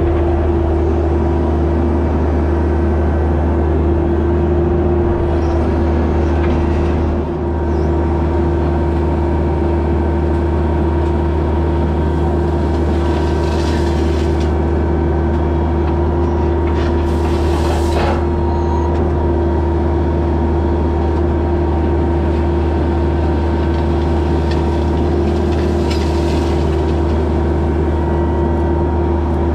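Heavy equipment engine running steadily at a constant speed, a loud, even drone with a deep hum.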